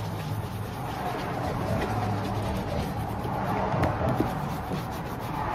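A hand brush swishing over a leather boot upper in repeated strokes, over a low hum that comes and goes.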